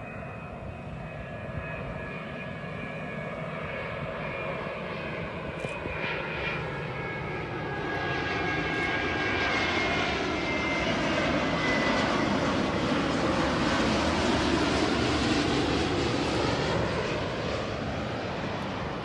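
Airbus A330 twin-engine jet airliner arriving to land and passing by, its engines giving a whine over a broad roar that grows louder to a peak about two-thirds of the way through, then eases off a little. The high engine tones drift slightly down in pitch as it approaches.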